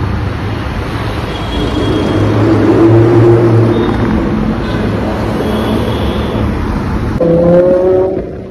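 Lamborghini Huracán's V10 engine running as the car drives past, loudest about three seconds in. Near the end the sound jumps to a higher, slightly rising engine note.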